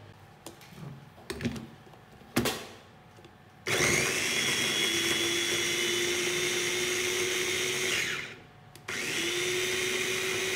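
Electric press-top mini food chopper chopping garlic, onion and chili with a steady motor whine. It runs about four seconds, winds down briefly, then starts again. Before it starts, a few short knocks as the lid is fitted.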